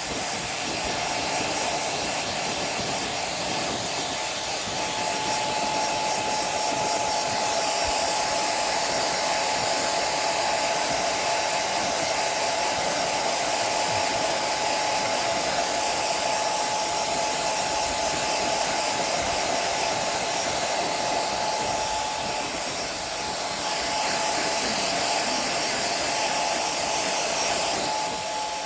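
Hair dryer running steadily, a blowing rush with a thin steady whine, switched off suddenly at the very end.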